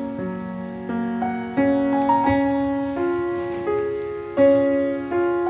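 Background piano music: single notes and chords struck about every 0.7 s, each ringing and fading before the next.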